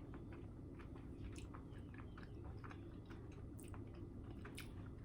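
A person chewing a mouthful of pizza close to the microphone, with soft, irregular wet mouth clicks.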